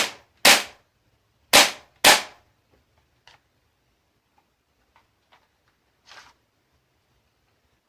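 Tokyo Marui MP7A1 gas-blowback airsoft gun firing four sharp single shots in two pairs, the shots in each pair about half a second apart. A few faint clicks and a short rustle follow.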